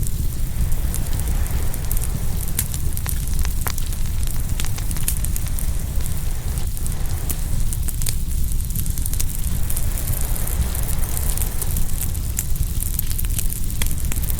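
Open wood fire crackling, with frequent sharp pops and snaps, over a steady low rumble.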